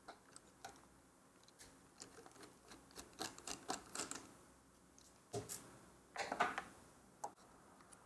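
Small clicks and ticks of a precision screwdriver turning tiny screws inside an open MacBook Air, with a quick run of clicks about three to four seconds in and a few louder knocks later on.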